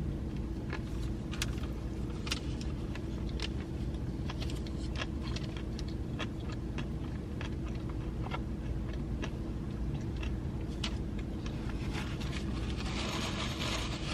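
Steady low hum of a car engine idling, with scattered light clicks and a soft rustle near the end.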